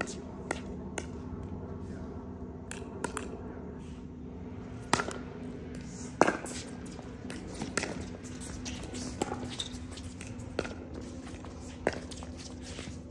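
Pickleball paddles striking the plastic ball and the ball bouncing on the court during a rally: a string of sharp pops at irregular intervals of roughly a second, the loudest about six seconds in. A steady low hum runs underneath.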